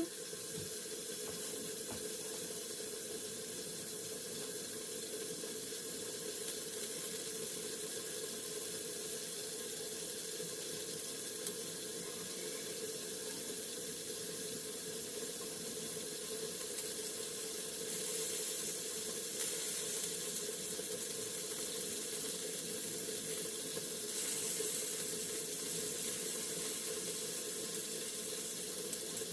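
Chicken wings frying in hot oil in a pan, a steady sizzle that swells slightly a couple of times.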